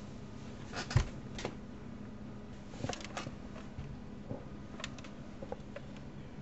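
Sparse, irregular clicks and light taps, with one sharper knock about a second in and small clusters near three and five seconds, over a faint steady hum.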